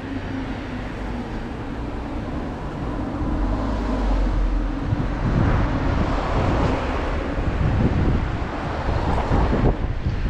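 Street traffic noise with wind buffeting the action camera's microphone, growing louder and more gusty about halfway through.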